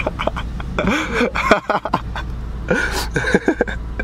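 Short wordless voice sounds and exclamations from men reacting to a prank, over a car engine idling steadily.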